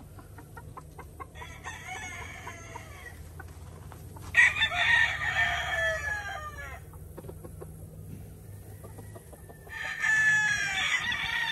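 Roosters crowing three times, the loudest crow about four seconds in and another near the end; these are young gamefowl stags kept in the pens.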